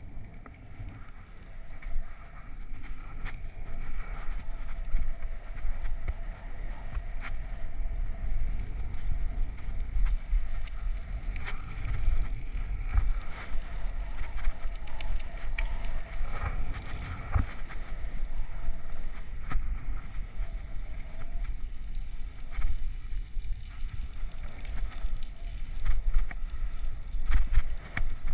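Wind rumbling unevenly on a helmet-mounted GoPro's microphone as a bicycle rides along, with scattered clicks and knocks as it rolls over cracked asphalt.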